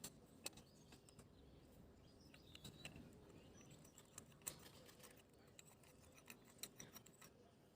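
Faint, irregular light clicks and taps: the small parts of a Bialetti Brikka moka pot being handled during disassembly.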